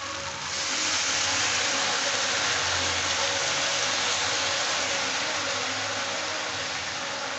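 Okra, onions and tomatoes sizzling in a hot kadhai as liquid is poured in: a loud, steady sizzle that starts about half a second in and eases slightly near the end.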